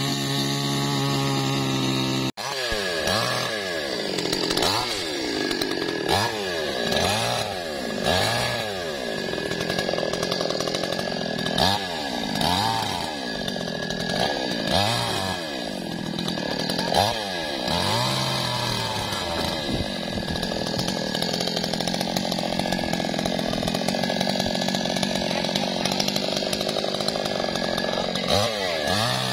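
Chainsaw running and cutting wood, its engine revving up and down again and again, then holding steadier at high revs through the latter part. It cuts out for an instant about two seconds in.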